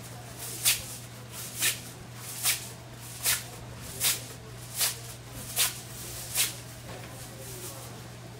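Kimbap being made by hand: eight evenly spaced swishing strokes, a little under a second apart, over a steady low hum.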